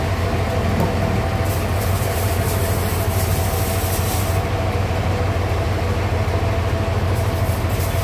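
Engine of a homemade portable sawmill running steadily, with a brief high hiss from about one and a half to four and a half seconds in.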